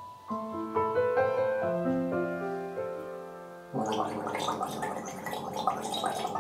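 Soft piano music, then about four seconds in a person starts gargling over it, rinsing the throat with a beetroot infusion.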